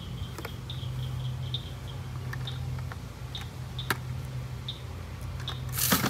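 Small clicks and rustles of plastic blister-pack toy car cards being handled, over a steady low hum. A louder brief rustle comes near the end.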